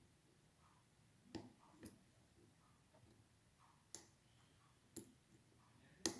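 Faint, sparse sharp clicks, about five in six seconds, from the pin tumblers of a Schlage Primus Everest lock being picked with a hook pick under clockwise tension: each click is a top pin setting at the shear line.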